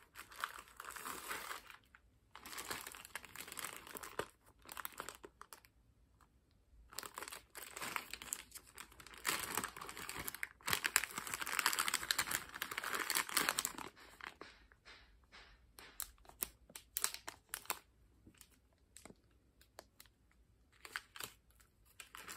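A clear plastic bag of spare harp strings and small parts crinkling as it is pulled from a mesh pocket and handled. It comes in bursts, loudest in the middle stretch, then gives way to lighter rustles and small clicks near the end.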